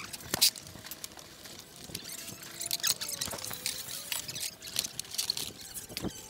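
Hand tools and loose metal motorcycle engine parts clinking and tapping as mechanics work. The clicks come at irregular intervals, with a sharper clink about half a second in.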